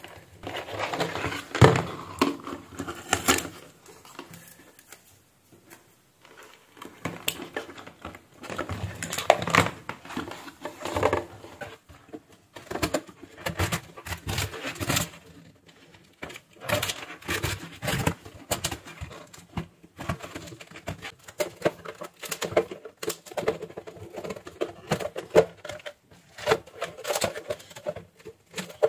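Plastic dome diffuser of an LED ceiling light being pried and twisted off its base by hand and with a slim tool: irregular clicks, creaks and scrapes of plastic on plastic.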